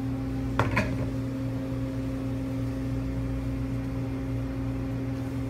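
Steady low machine hum of shop kitchen equipment, with one brief sharp click or rustle just under a second in.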